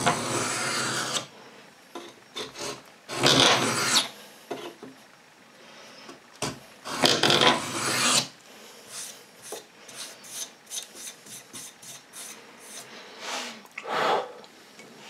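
A Lie-Nielsen No. 66 beading tool scraping along a strip of hard maple as it cuts reeds. Three long scraping strokes come at the start, about 3 seconds in and about 7 seconds in. After them come short, lighter scrapes and ticks, and one more scrape near the end.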